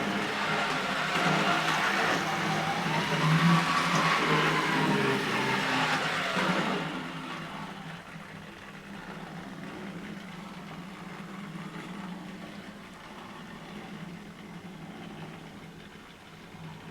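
Electric model train running on the track: motor whine and wheel noise that rises and falls in pitch. It is loud for the first six or seven seconds, then much quieter and steadier.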